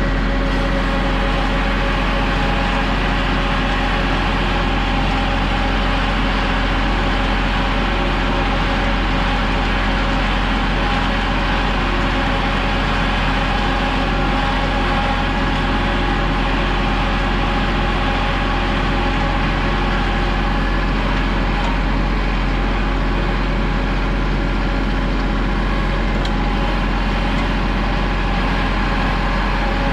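A vehicle engine running at a steady, unchanging speed throughout, with a constant low hum and no revving or stops.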